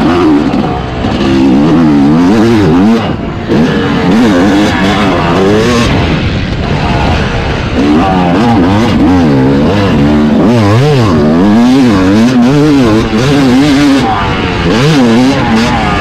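Yamaha YZ250 single-cylinder two-stroke motocross engine being ridden hard, its revs swinging up and down over and over as the throttle opens and closes. The revs drop briefly about one and three seconds in.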